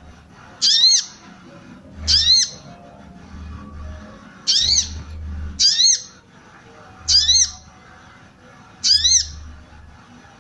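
Female sogon (sogok ontong) bird calling: six short, sharp "cuit" notes, each a quick up-and-down whistle, spaced one to two seconds apart. This is the female's call used to stir male sogons into song.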